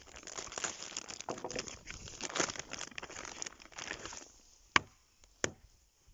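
Thin plastic bag crinkling and rustling as it is pulled off a raw slab of meat, for about four seconds. Then two short sharp clicks about half a second apart.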